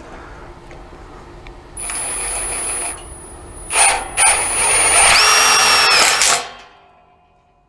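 Cordless drill driving screws into the gate fittings: a short run of the motor about two seconds in, then a brief burst and a longer, louder run from about four to six seconds, its whine rising and then holding before it stops abruptly.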